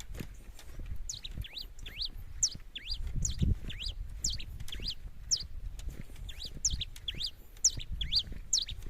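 Pileated finch (cravina) singing: a short phrase of high chirps, each opening with a quick falling note, repeated about once a second, over a low rumble.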